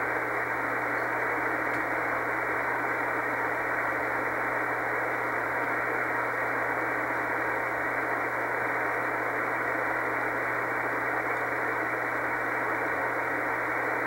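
Shortwave receiver hiss from an Icom IC-R8500 tuned to 5058.5 kHz: steady, even static through the receiver's narrow audio passband over a low hum, with no Morse signal keying through.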